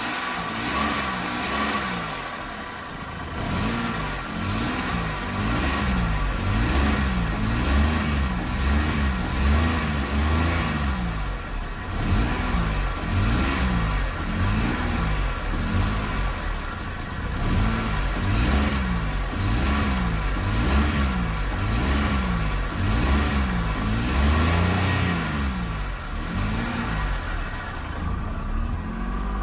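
Car engine running and revved again and again in quick blips as the gas pedal is pumped, about once a second, with a brief pause partway through.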